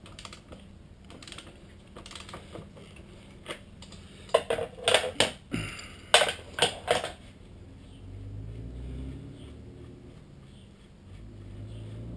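Hand tools on a TW200's front axle nut and bolt, clicking as the nut is loosened and taken off. The loudest part is a quick run of sharp clicks about four to seven seconds in, and a faint low rumble follows near the end.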